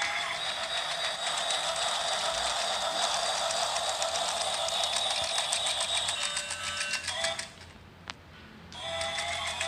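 Battery-powered toy train running: a small motor whirring with fast, fine clicking, with a simple electronic tune at times. It cuts out about seven and a half seconds in, a single click sounds, and it starts up again about a second later.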